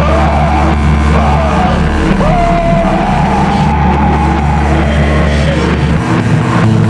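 Harsh noise industrial music: a loud, dense wall of distorted noise over a heavy low drone, with a pitched line that bends up and down through the middle.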